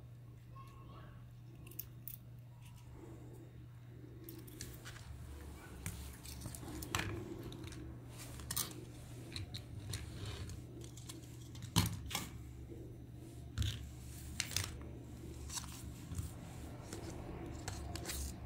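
Small plastic toy parts being handled and fitted together by hand: scattered light clicks, taps and knocks of hard plastic pieces, the loudest about twelve seconds in, over a low steady hum.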